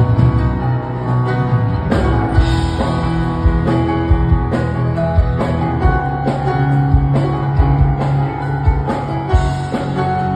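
Background music: a guitar-led track with a drum beat.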